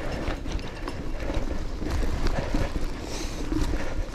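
Bicycle rolling over a gravel road: tyres crunching and the bike rattling with many irregular small knocks over a steady low rumble.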